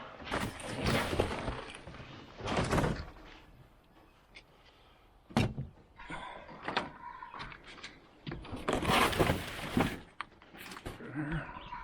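Heavy shipping boxes and parts being dragged and knocked about: long scrapes near the start and again around nine seconds in, a single sharp thud about five and a half seconds in, and scattered clicks.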